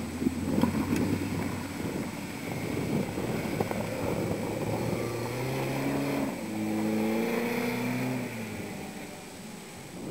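Engine of a small off-road vehicle running over rough ground. About halfway through it revs up with a clear, slightly rising note for a few seconds, then falls back.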